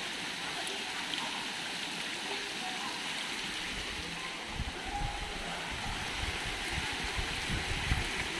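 Heavy rain pouring steadily, a continuous hiss of rain and running water. About halfway through, a low rumbling joins in underneath.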